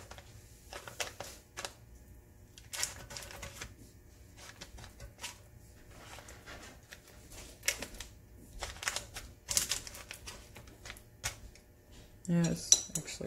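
Parchment paper lining an air fryer basket crinkling and rustling in short, irregular crackles as hands press and shape raw salmon patties on it. A louder burst of crinkling comes near the end.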